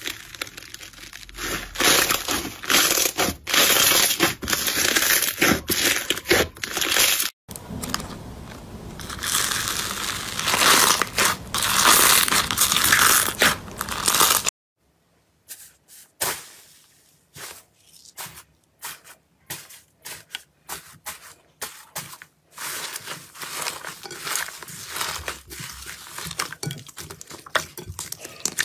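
Hands pressing, squeezing and kneading slime in tubs and bowls, making dense crackling and popping with wet squelches. Near the middle the sound stops for a moment, then comes back as sparser separate pops and clicks that grow denser again toward the end.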